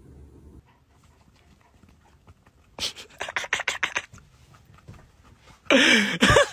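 A German Shepherd's quick, noisy breaths, about eight a second for just over a second. Near the end it gives a loud drawn-out vocal call whose pitch wavers up and down.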